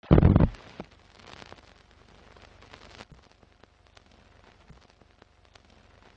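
Old-film crackle sound effect on a countdown leader: a loud low thud at the start, then a faint hiss scattered with pops and clicks.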